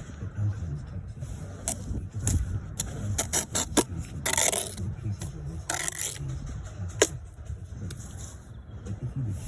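Bricklaying with a trowel: sharp taps and clicks of steel on brick, with two longer scrapes of the trowel through mortar about halfway through.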